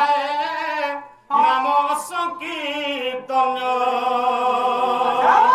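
A singer holding long, wavering notes in a folk melody, the voice breaking off twice and sweeping up then back down near the end, with no drumming heard.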